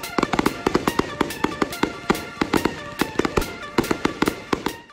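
Pyro Predator 325-shot Saturn missile battery firing in rapid volleys: an irregular string of sharp pops and cracks, several a second, with background music under it. The sound fades out near the end.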